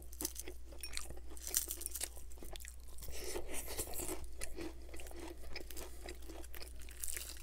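Close-miked chewing of extra-crispy fried chicken, with irregular crackly crunches of the fried breading.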